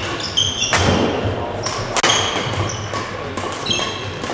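Badminton rally: sharp racket hits on a shuttlecock about a second apart, with many short high squeaks of court shoes on the hall floor between them.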